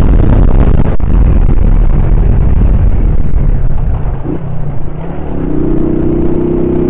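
Single-cylinder engine of a 1999 Honda CG Titan motorcycle running as it rides, under heavy wind rush on the helmet-level microphone. About five seconds in the rush eases and the engine's steady note comes through clearly.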